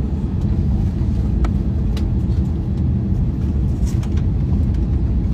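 Steady low rumble of a motor vehicle running, with a few faint clicks.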